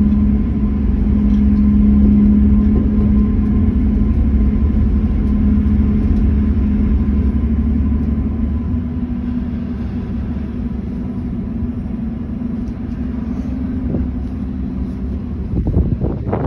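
Passenger ferry's engines running with a steady low hum and drone, getting a little quieter about halfway. Wind buffets the microphone near the end.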